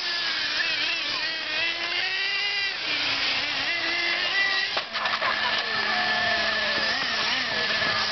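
Several electric RC short-course trucks racing together, their motors and gear drivetrains whining and gliding up and down in pitch as they accelerate and brake. There is a sharp knock a little before the middle.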